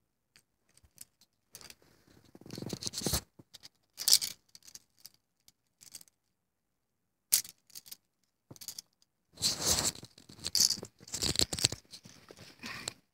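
Intermittent handling noise: short bursts of rustling and light clacking of plastic baby toy keys on their ring as they are moved about, with quiet gaps between.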